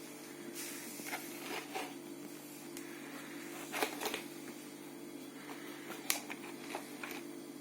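Handling of a mosaic puzzle kit's packaging during unboxing: scattered rustles and sharp clicks, the loudest about four and six seconds in, over a steady low hum.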